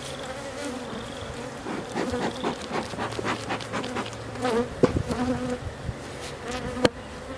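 Honey bees buzzing around an open hive, with a scatter of small clicks and knocks from the hive parts being handled; the sharpest knocks come about five and about seven seconds in.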